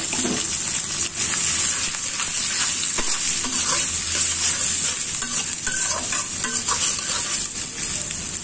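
Chopped onion, garlic and green chillies sizzling in hot oil in a karahi, stirred with a flat metal spatula that scrapes across the pan. The sizzle is a steady hiss throughout.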